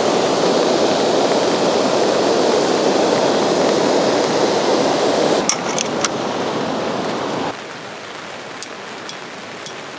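Steady rushing of flowing river water. About five and a half seconds in come a few sharp clicks of tent gear being handled, and near the end the rushing drops suddenly to a quieter level, with a few faint clicks as a tent peg is worked into gravel.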